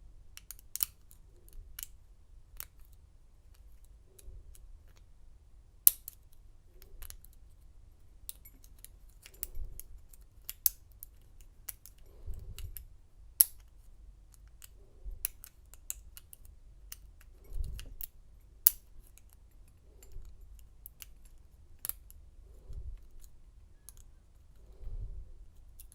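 Lock pick clicking and scraping against the pin stacks of an American lock core in a Schlage lock during single pin picking: irregular sharp metallic ticks, with soft handling thumps every few seconds.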